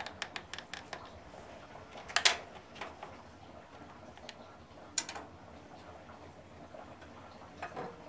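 Small metallic clicks and taps from a riding mower's negative battery terminal bolt and cable being unfastened and lifted off, with a sharper click about two seconds in and another about five seconds in.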